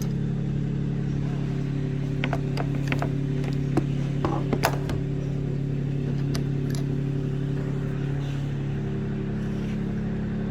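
Metal tools and engine parts clinking and clicking a few times, between about two and five seconds in, over a steady low hum.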